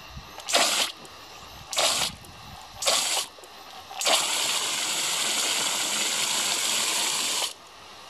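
Water hissing out of a pistol-grip garden hose spray nozzle, squeezed in three short bursts, then held open for about three and a half seconds before cutting off.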